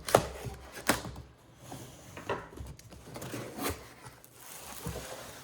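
Cardboard box and packaging being handled and opened: rustling and scraping with several sharp knocks, the loudest two near the start.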